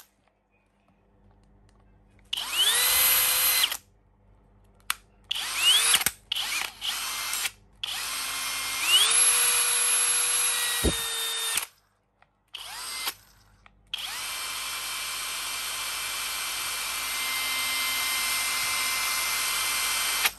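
Flex 24V brushless cordless hammer drill run with no load, in repeated trigger pulls: each time the motor whine rises quickly as it spins up, then holds a steady pitch. A short run, a few quick blips, a longer run of about three seconds, and a long steady run of about six seconds near the end.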